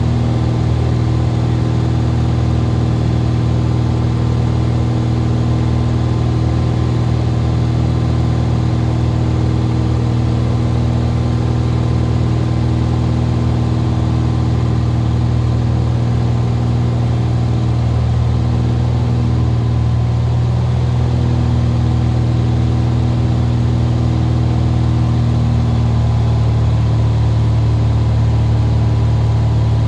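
Steady drone of a Cessna RG's single piston engine and propeller heard inside the cockpit in flight, with a strong low hum and steady tones above it.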